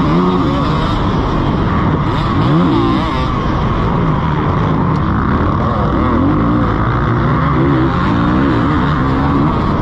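Motocross bike engine under hard racing throttle, heard from on the bike. The revs rise and fall again and again as the throttle is worked over the rough dirt track.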